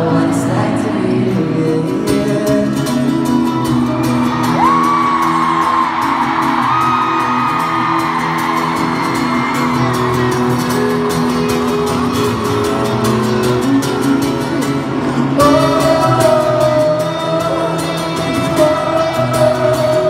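Live pop ballad heard from the audience in an arena: long held sung notes over the accompaniment, with the hall's echo.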